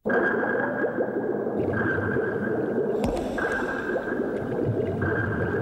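Steady bubbling and gurgling of water in a fish tank.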